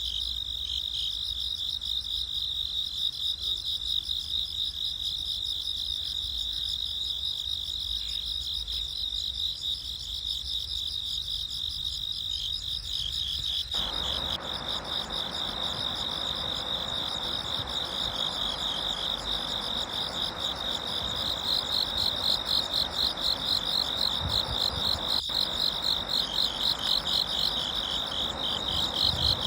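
A steady, high-pitched chorus of insects shrilling, which turns into a fast pulsing rhythm of a few pulses a second in the last several seconds. About halfway through, a soft, even hiss comes in beneath it.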